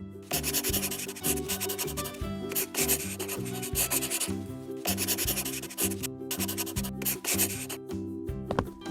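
Background music, a melody moving in steps over a bass line, with long stretches of scratchy noise laid over it.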